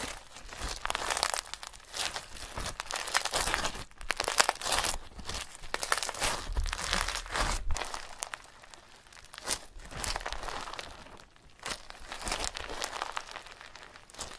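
Irregular crinkling and crunching of something being mashed and squished by hand, coming in bursts with short pauses between them.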